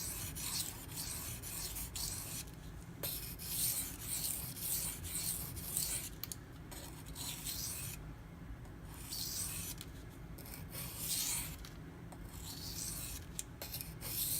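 M390 steel knife blade stroked back and forth by hand on a waterstone: repeated gritty scraping strokes with a few short pauses, as finishing passes after the edge's chips have been ground out.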